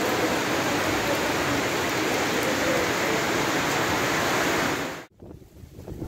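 Steady, loud rush of rain falling on a metal roof overhead. It cuts off suddenly about five seconds in, giving way to fainter gusts of wind on the microphone.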